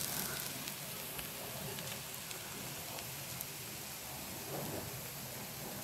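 Campfire coals and a wire grill with steak drippings sizzling: a low, steady hiss with a few faint crackles.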